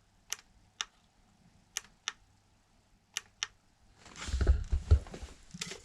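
Six sharp clicks in three quick pairs, a small push switch being pressed, most likely the RC car's add-on rear light being cycled through its settings. About four seconds in, rustling handling noise takes over.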